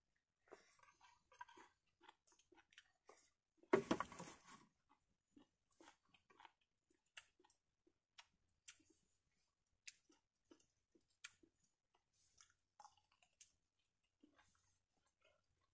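A person eating: quiet chewing with scattered small clicks and crunches, and one louder crunching noise lasting about a second, about four seconds in.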